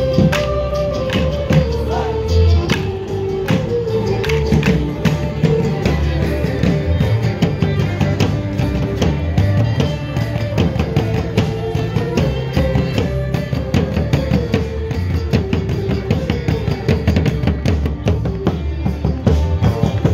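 Live Border Morris dance band playing a steady, driving tune, with electric guitar and drums, while the dancers' wooden sticks clack together in time.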